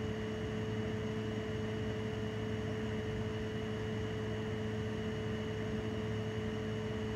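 A steady mechanical hum with an even hiss and a constant pitch that does not change.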